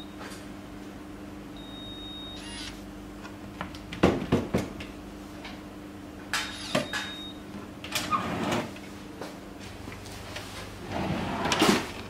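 Wooden cabinet drawer rattling and knocking as it is pulled open and pushed shut several times, the loudest knock near the end as it closes. The KR-36SF fingerprint drawer lock gives a short high beep about two seconds in, and again after a finger is pressed to its sensor.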